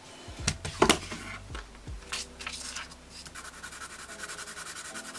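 Thin paper being handled and shifted, with a few rustles and a sharp tap about a second in. From about three seconds in, a graphite pencil scratches rapidly and steadily back and forth over the tracing paper for a graphite transfer.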